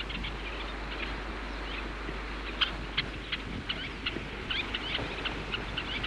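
Little terns calling: short, sharp, high-pitched notes, sparse at first and coming several a second in the second half, over a steady hiss and low hum.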